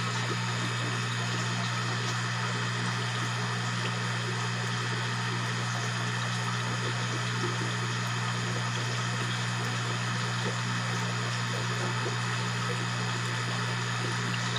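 A steady low electrical hum with an even hiss over it, unchanging throughout.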